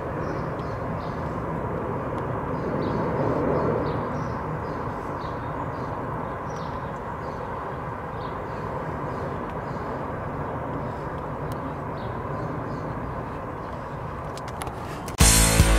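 Jet engine roar of a Boeing 787-9 Dreamliner passing overhead on approach. It swells to its loudest about three to four seconds in, then slowly fades. Just before the end, guitar music cuts in abruptly.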